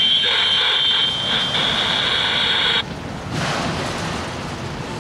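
Freight train of autorack cars rolling past on the rails, with a steady high-pitched squeal from the wheels that cuts off abruptly about three seconds in. The rumble and rattle of the passing cars carries on after it.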